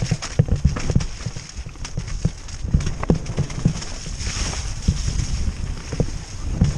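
Dirt bike ridden hard over a rough woodland trail, heard from the rider's helmet: a dense low rumble of engine and wind broken by repeated knocks and thuds from the bumps. About four seconds in there is a brief hissing splash as the bike goes through a wet, muddy patch.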